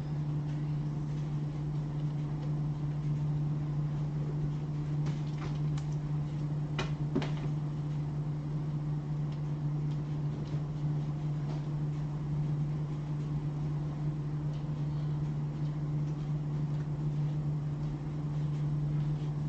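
Steady low mechanical hum with a few light clicks about a third of the way in.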